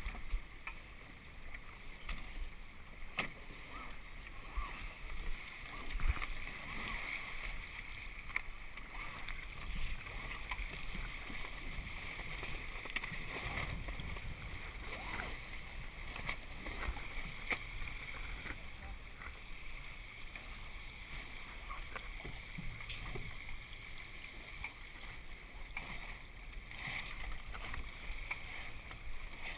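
Water rushing and splashing along the hull of a 29er sailing dinghy moving fast through chop, with scattered knocks from the boat.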